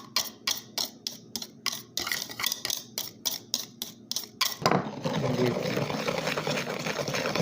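A whisk beating egg yolks with sugar and cornstarch in a bowl, striking the bowl in quick regular strokes, about four a second. A little after four seconds in, the strokes stop and a steady hiss takes over.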